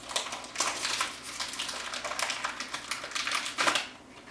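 Foil Pokémon booster pack wrapper crinkling in a series of irregular rustles as it is worked open by hand.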